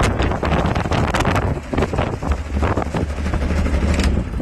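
Jabiru 3300 flat-six aircraft engine, fitted with Rotec liquid-cooled heads and electronic ignition, running with its propeller turning just after start-up. Right at the end it begins to die away as it is switched off.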